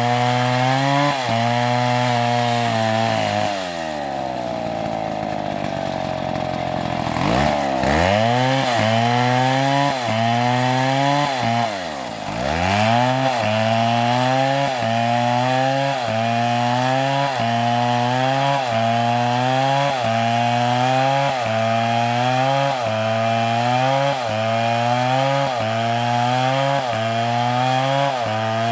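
Two-stroke chainsaw cutting wood, its engine pitch rising and dropping in a regular cycle about once a second. About four seconds in it slows down, revs back up near eight seconds, dips once more around twelve seconds, then returns to the cycle.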